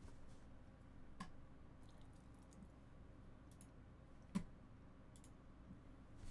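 Near silence with a few faint, scattered clicks from working a computer, the sharpest about four seconds in.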